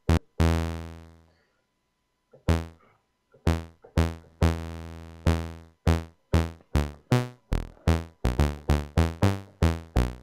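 Roland Gaia SH-01 synthesizer playing a pluck bass patch: a string of low notes, each starting sharply and dying away quickly, a few ringing for about a second. The notes come faster toward the end, about three a second.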